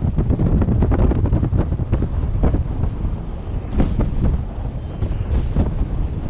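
Airflow buffeting the microphone in flight under a paraglider: a loud, gusty low rumble with irregular flutters.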